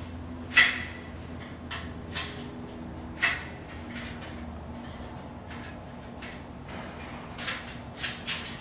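Aprilaire media frame parts clicking and knocking as the top rail is pushed onto the supports and snaps into place: a handful of short, sharp clicks, the loudest about half a second in, a few more over the next three seconds, and a quick cluster near the end.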